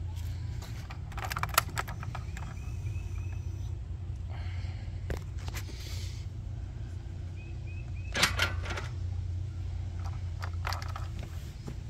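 Ignition key and keyring on a Honda ATV being handled and switched on: a few short clusters of clicks and a light jangle over a steady low hum.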